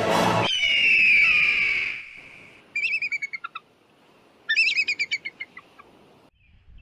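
Music cuts off about half a second in, followed by a long, falling whistle-like note. A songbird then sings two short phrases of quick, repeated high notes, each dropping in pitch.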